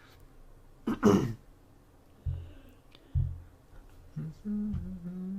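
A person clears their throat once, about a second in, followed by two dull low thumps. Near the end they begin humming a tune at a steady, low pitch.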